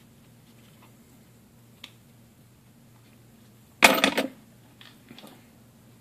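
Small hard pocket items being handled in the hands: a faint click about two seconds in, then a short burst of sharp clicks and clatter about four seconds in, followed by a few light ticks.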